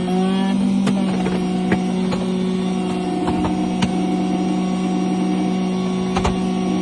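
Key-cutting machine running steadily, cutting a replacement car key blade, with a few sharp clicks from the cutter and key clamp.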